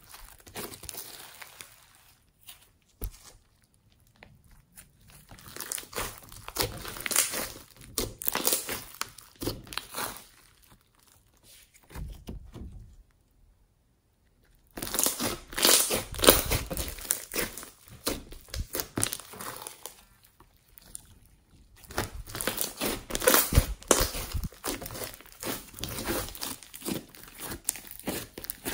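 Hands squishing, stretching and folding a large lump of glittery homemade slime: bursts of many small clicks and pops from the slime, broken by a few quiet pauses.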